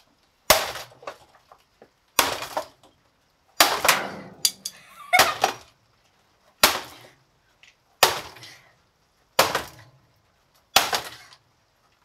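Repeated hard strikes smashing a red plastic canister vacuum cleaner: about eight sharp cracks, roughly one every second and a half, each followed by a brief crackle of breaking plastic.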